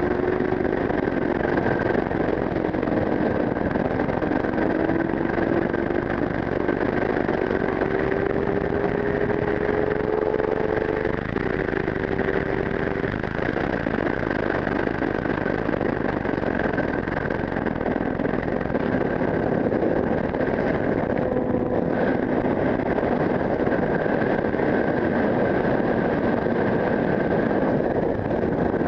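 Sport motorcycle engine running under way at steady road speed, its pitch climbing slowly and shifting a few times, under loud, steady wind rush on a helmet-mounted camera.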